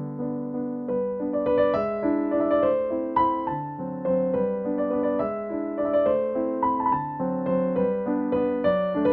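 Soft background piano music: slow, gentle notes played one after another.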